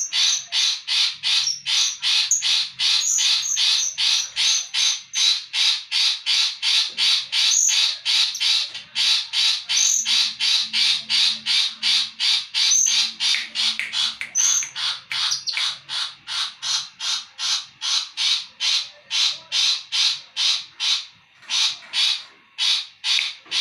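Long-tailed shrike singing: a long, unbroken run of harsh, scratchy notes repeated about three times a second, with a few short rising whistles mixed in during the first half.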